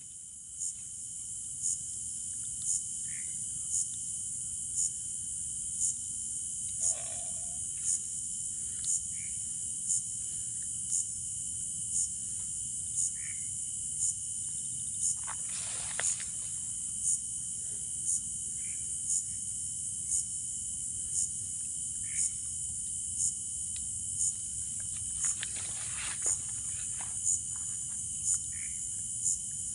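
Crickets and other insects trilling steadily in a high-pitched chorus that swells about once a second, with a few faint short calls.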